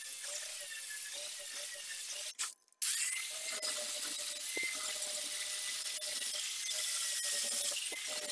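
Angle grinder running at speed with an abrasive polishing pad against steel: a steady high whine over a hiss of the pad on the metal. It cuts out abruptly for about half a second after two seconds, then runs on at the same pitch.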